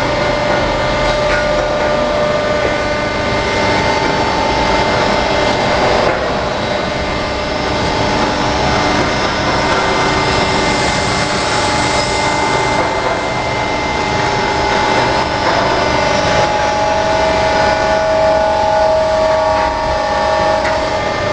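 Hydraulic tyre baler running: steady loud machine noise with several held whining tones from the hydraulic drive.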